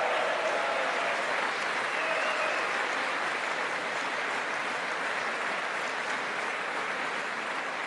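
Members of Congress applauding steadily, a large audience clapping in a big chamber.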